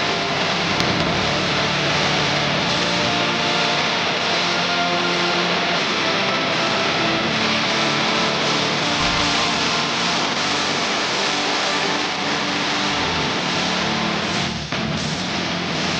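Loud guitar-driven rock music mixed with a steady, dense whirring and revving layer, typical of anime battle sound effects, which drops out briefly near the end.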